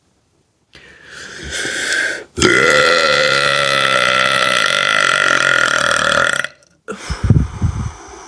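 A woman's long, loud burp held about four seconds with a wavering pitch, after a shorter rising belch just before it. A few short low puffs of breath follow near the end.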